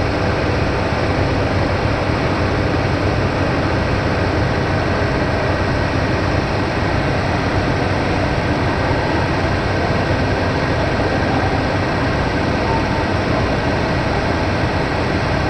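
Machinery running steadily, a loud, unchanging rumble with a faint steady hum.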